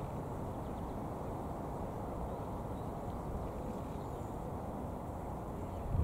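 Steady low rumble of wind buffeting the microphone over choppy open water.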